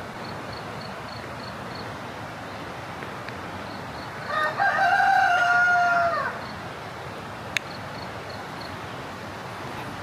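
A rooster crowing once, a call of about two seconds that drops in pitch at the end, over a steady background hiss.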